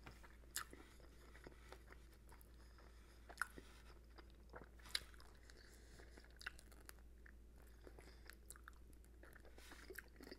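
Faint sounds of a man eating saucy chicken wings: chewing and mouth noises with scattered short clicks, a few sharper ones standing out.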